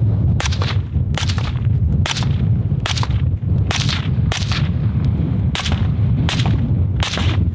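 A suppressed rifle fired shot after shot, about one every half to three-quarters of a second, in pairs aimed at each target.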